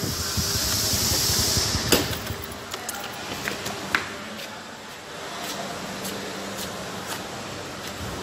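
Handling noise and footsteps of someone walking while holding the phone: a rushing hiss for the first two seconds, then a sharp click about two seconds in, another about four seconds in, and scattered light taps and ticks.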